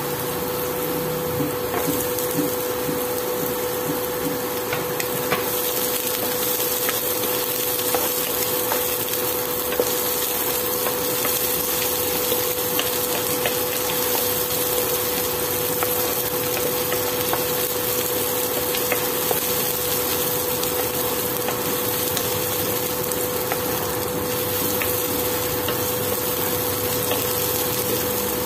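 Garlic, ginger and sliced shallots sizzling in oil in a nonstick pan on an induction cooktop, with a steady hum from the cooktop. A wooden spoon knocks lightly against the pan now and then during stirring.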